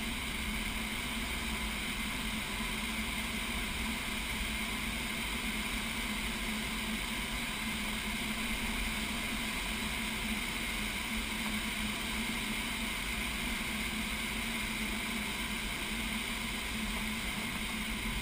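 Steady rush of air past a glider's canopy, heard inside the cockpit in gliding flight, with a faint even hum beneath it.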